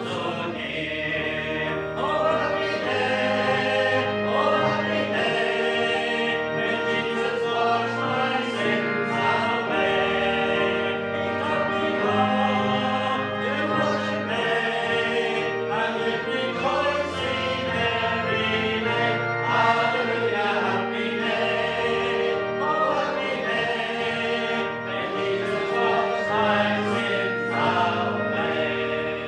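A hymn sung by many voices together, with instrumental accompaniment holding sustained notes underneath.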